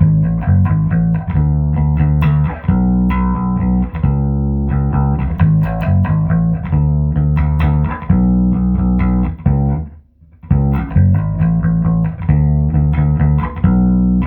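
Electric bass guitar, a Hohner B bass with Seymour Duncan Quarter Pound J-bass pickups, played through a Trace Elliot 12T bass amp and 1518T speaker cabinet. It plays a run of plucked notes, clean with the amp's pre-shape and compression and no effects, and stops briefly about ten seconds in before the line resumes.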